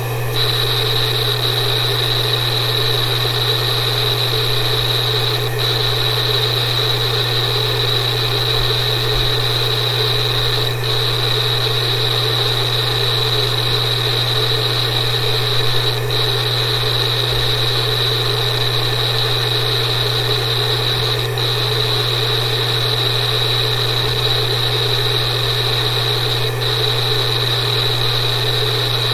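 Old hard disk drive running: a steady low hum with a high whine over it, dipping briefly about every five seconds.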